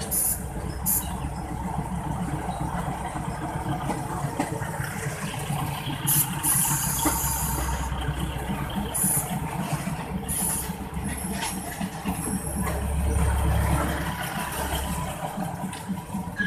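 Two trains running side by side at close range: the rumble and rattle of steel wheels on the track and the diesel railcar's engine. Several brief hissing bursts come through, the longest about six to eight seconds in, and a deeper rumble swells about thirteen seconds in.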